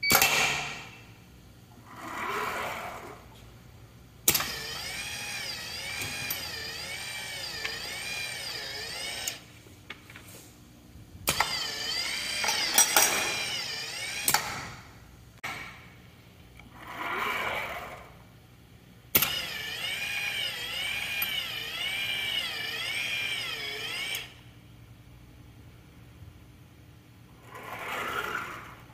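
Automated pneumatic assembly training station cycling. Sharp clicks and knocks from its cylinders and valves, a motor whine with a wavering pitch that runs for about five seconds at a time, three times, and three shorter swells of noise that rise and fall between those runs.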